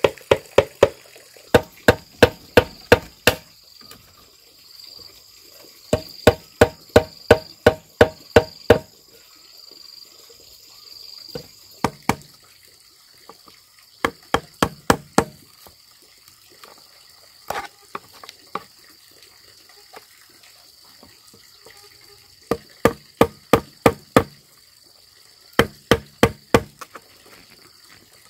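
Bamboo being chopped with a blade: quick runs of sharp, hollow-ringing blows, about five a second, with short pauses between the runs.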